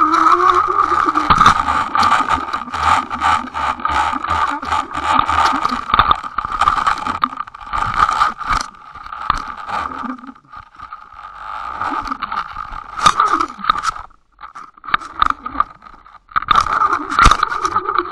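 Underwater noise picked up through a line-mounted underwater camera housing while a hooked carp pulls on the line: a steady hum of water with many scraping clicks and knocks. It thins out about halfway through, with short near-quiet gaps, then a burst of clicks near the end.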